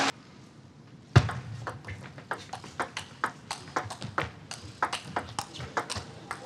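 Table tennis rally: the ball clicks back and forth between the players' bats and the table, a run of short sharp ticks a few a second, opening with a louder knock about a second in.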